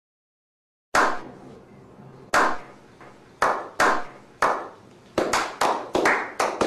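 A slow clap: hands clapping, starting about a second in with single claps more than a second apart that come quicker and quicker toward the end, each with a short echo.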